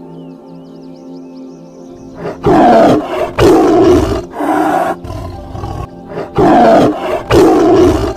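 A big cat roaring five times, loud, drawn-out roars in two groups starting about two seconds in, over steady background music.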